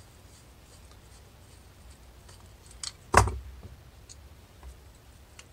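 Parts of a Mikuni carburetor being handled as the float-bowl screw and float bowl come off: a small click, then one sharp knock about three seconds in, then a few faint ticks.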